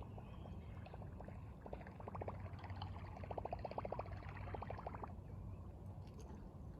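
Rapid, even ticking from a fishing reel being cranked, lasting about three seconds before stopping, over a steady low rush of river water.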